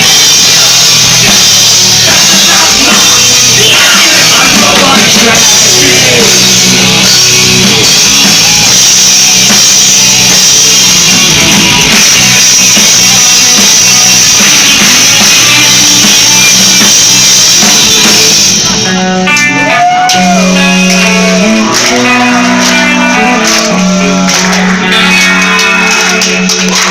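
Rock band playing live at full volume: distorted electric guitars over a drum kit, with no vocals. About 18 seconds in, the dense wall of sound drops away to a thinner passage of ringing, bending guitar notes.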